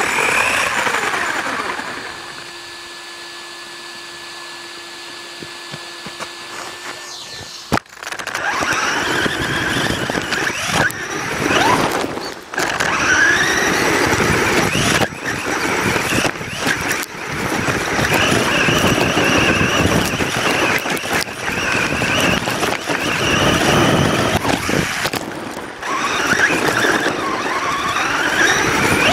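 Radio-controlled car's motor whining and revving, its pitch repeatedly rising and falling as the car speeds up and slows down. For the first several seconds there is only a quieter steady hum, and loud revving takes over about eight seconds in, with occasional sharp knocks.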